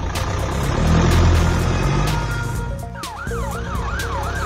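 Cartoon vehicle sound effects over background music: a low engine rumble from the tow truck swells and fades as it drives off. About three seconds in, a police siren starts, wailing quickly up and down about two and a half times a second.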